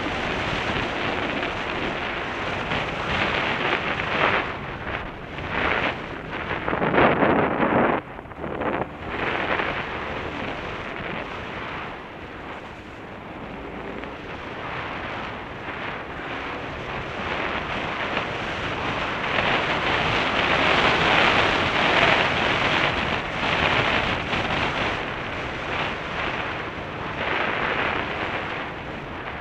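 Motorcycle riding a rutted dirt forest track, heard mostly as rushing wind on the onboard camera's microphone. The noise rises and falls in gusts and is loudest about seven seconds in.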